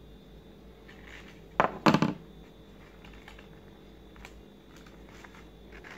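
Handling of stiff paper petals and a hot glue gun: light rustles and clicks, with a short burst of louder knocks and crinkling about two seconds in.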